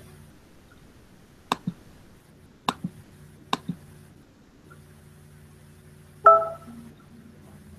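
Three quick double clicks about a second apart, then a louder short ringing clink that dies away within half a second.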